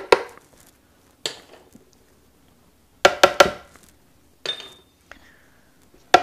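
Small spice bowls knocked and tapped against the top of a blender jar while spices are tipped in: a series of short clinks and knocks with a brief ring, three in quick succession about three seconds in and another cluster near the end.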